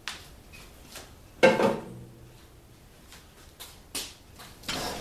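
Metal knocks and clatter of transmission parts being handled on a steel workbench: a sharp click, then a louder clank with a short ring about a second and a half in as the removed oil pan is set down, and a few smaller knocks near the end.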